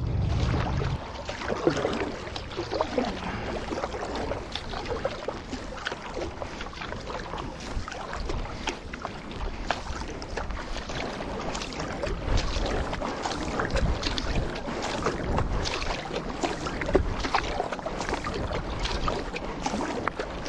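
Paddle strokes in the water from a stand-up paddle board, with splashes and water rushing past the board.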